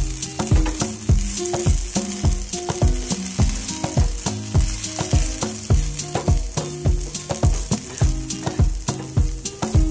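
Diced potatoes sizzling in shallow oil in a wide pan, stirred with a wooden spatula, under background music with a steady beat about twice a second.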